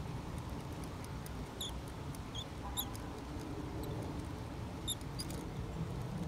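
A small bird giving short high chirps every second or so, over a steady low outdoor rumble.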